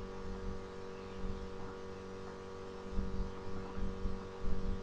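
Steady electrical mains hum, with dull low bumps and faint rubbing in the second half as a rope is twisted by hand.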